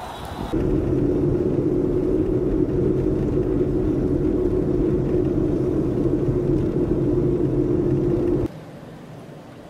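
Steady road and engine drone of a car driving on a snow-covered highway, heard from inside the moving car: a low rumble with a steady hum. It starts abruptly about half a second in and cuts off near the end.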